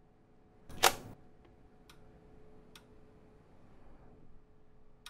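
A single sharp plastic clack about a second in, the jaw of a testo 770-3 clamp meter snapping shut as it comes off a wire, followed by a couple of faint handling ticks over a faint steady hum.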